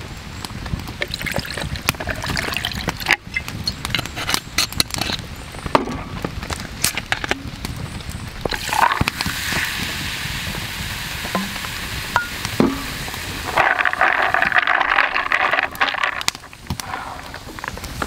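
Whisky poured over ice in a glass beer mug, the ice crackling and clinking, then carbonated soda water poured in about halfway through, fizzing as it foams up.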